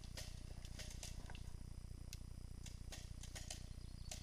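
Faint, irregular sharp clicks, two or three a second, over a low steady rumble.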